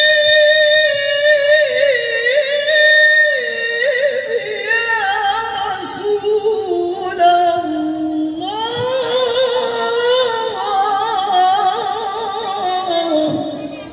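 A woman singing sholawat, an Islamic devotional song, into a microphone. She sings two long, ornamented phrases with wavering, sliding pitch, and the second phrase begins at a higher pitch about eight and a half seconds in.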